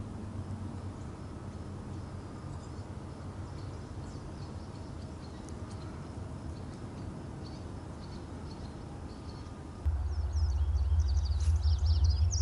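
Outdoor ambience of birds chirping faintly over a steady low rumble. About ten seconds in, the rumble abruptly becomes louder and the chirping grows busier.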